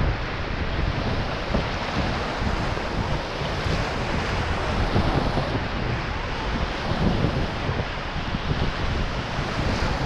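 River whitewater rushing steadily around an inflatable raft, with wind buffeting the microphone.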